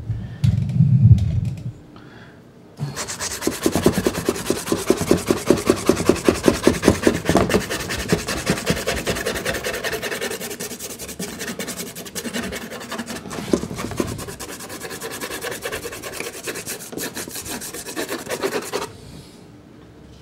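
Soft pastel stick scraping over sanded Sennelier La Carte pastel card in quick back-and-forth hatching strokes, several a second, laying in the background colour; it stops near the end. A low thump comes about a second in.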